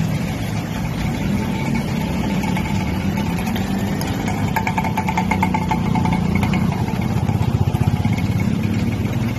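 Small engines of motorcycles and auto-rickshaws running as traffic moves slowly through floodwater, a steady mix of engine hum and noise. One engine throbs louder about seven to eight seconds in.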